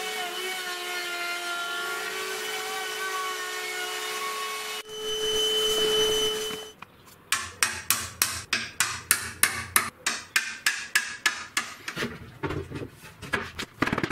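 Bosch POF 1200 AE plunge router running steadily as it cuts a rebate in jarrah, louder for its last couple of seconds, then cutting off about two-thirds of a second before the halfway point. A quick series of sharp wooden taps and knocks follows, two to three a second, as the rebate corners are chiselled square and a rubber mallet taps the top panel into place.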